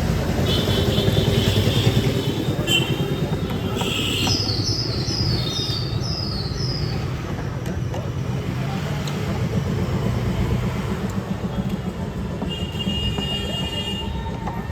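Steady low rumble of background road traffic, with a run of five short high chirps about four to seven seconds in.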